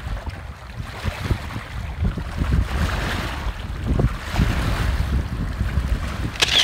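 Wind gusting across the microphone in heavy low buffets, over the steady wash of small waves lapping at a lakeshore.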